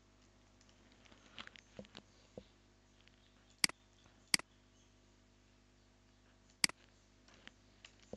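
Computer keyboard keys tapped softly a few times, then three sharp mouse-button clicks: two about a second apart, and a third about two seconds later.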